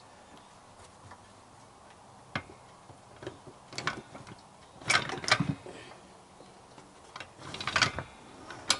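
Scattered metallic clicks and clanks from a steel trolley jack being shifted and pushed out from under a motorcycle's front end, with the loudest knocks about five seconds in and a quicker run of them near the end.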